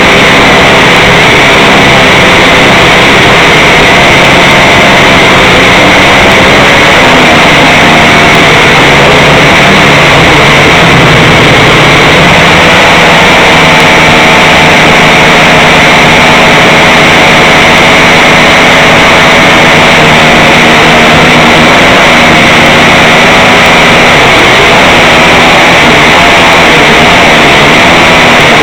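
Small quadcopter drone's motors and propellers, picked up by its own onboard camera's microphone, running loudly and steadily, their pitch wavering up and down every few seconds as it manoeuvres.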